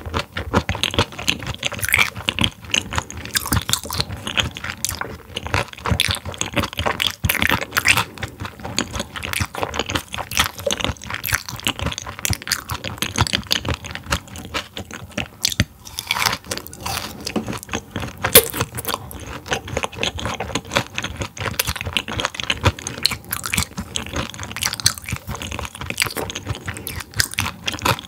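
Close-miked chewing of partly frozen raw silver pomfret (butterfish) sashimi: a steady run of crunches and wet mouth clicks as the cold slices are bitten and chewed.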